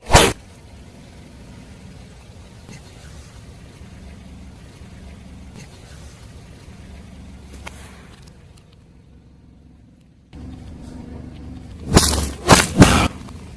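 A car's tyre crushing crunchy objects over a low, steady rumble of the car rolling. There is one sharp crunch at the very start and a quick run of three loud cracks near the end.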